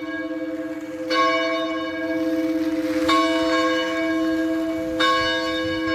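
A church bell tolling slowly, struck three times about two seconds apart, each stroke ringing on into the next.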